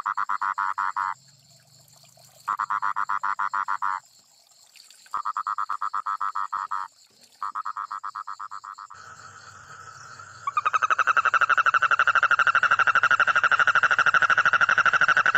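Toad calling: trills of rapid, even pulses, several lasting a second or so with short pauses between, then from about ten seconds in a louder trill that runs on without a break.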